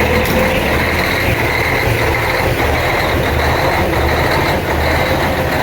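Diesel truck engine idling just after a cold start in freezing weather: a steady low rumble with a faint steady high whine over it.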